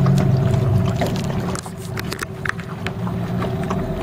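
Motorboat engine running steadily, a constant low hum, with water splashing and slapping against the hull now and then.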